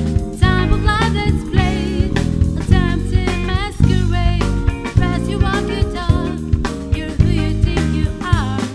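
Music: a sung vocal melody over a drum beat and bass.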